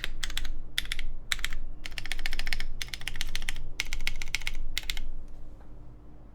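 Typing on a Tech Bear TB8-TKL mechanical keyboard with lubed JWK Cotton Candy switches and GMK Arctic keycaps: quick runs of keystroke clacks that stop about five seconds in.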